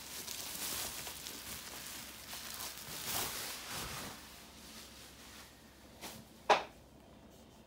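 Plastic bubble wrap crinkling and rustling as a bubble-wrap pouch is pulled off an iPad by hand, easing off after a few seconds. Near the end comes a single sharp knock.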